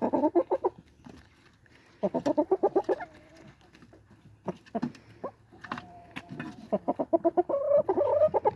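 Chickens clucking in fast runs of short notes, in three bouts: at the start, about two seconds in, and again from about seven seconds in.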